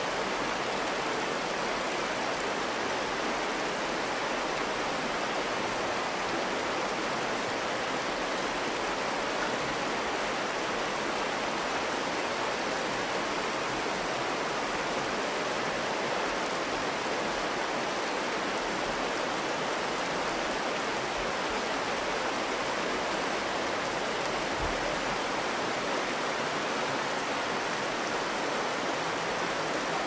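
Shallow river water flowing steadily over a stony bed: an even, unbroken hiss of moving water with no pauses or separate splashes.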